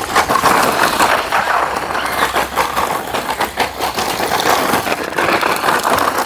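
DEERC 9308E electric RC truck driving, its motor whirring and its tyres crunching and rattling over the ground with many small clicks.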